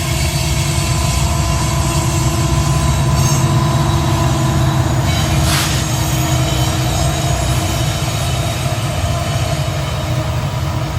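Freight train rolling past with a steady rumble, its steel wheels squealing on the rails in a few held tones.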